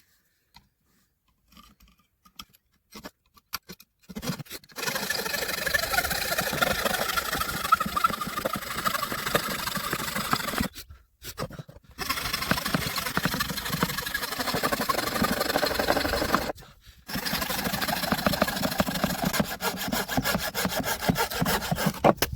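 A saw cutting through the wooden side of a box beehive, in three long continuous runs with two brief pauses between them, after a few light handling clicks.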